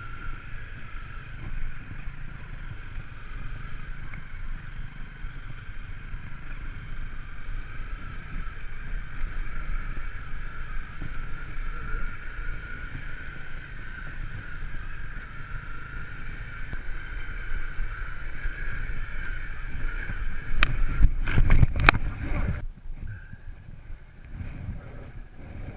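Off-road vehicle engine running over rough ground, with a low rumble and a steady whine. About 21 seconds in comes a short cluster of loud knocks and rattles, after which the running sound drops away.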